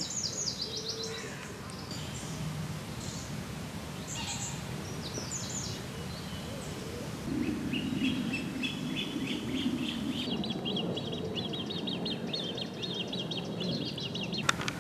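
Small birds singing over steady outdoor background noise, with short runs of high chirps early on and a long, rapid chirping trill from about seven seconds in. A single sharp click sounds just before the end.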